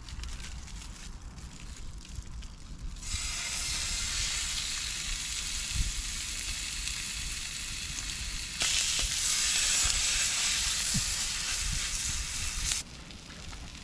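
Raw chicken sizzling in a hot, oiled non-stick pan. The sizzle starts about three seconds in as the meat goes into the pan, gets louder around the nine-second mark while the meat is pressed down, and cuts off suddenly about a second before the end.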